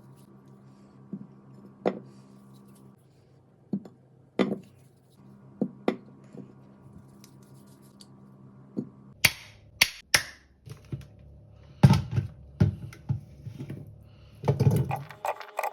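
Scattered clicks and knocks of things being handled over a steady low hum that stops and starts twice; in the last six seconds a run of louder knocks and thuds.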